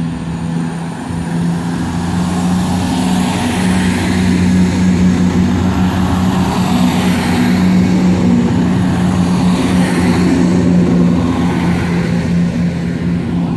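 Class 168 Clubman diesel multiple unit pulling away from the platform under power: its underfloor diesel engines give a steady, loud engine note that builds slightly after about a second.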